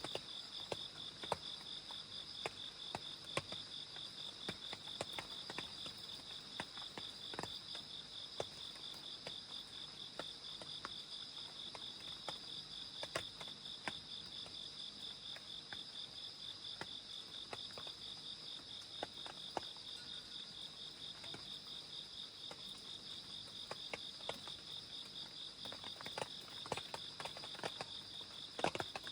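Crickets and other grass insects trilling steadily in a fast, even pulse, with scattered sharp taps of rain dripping that come more often near the end.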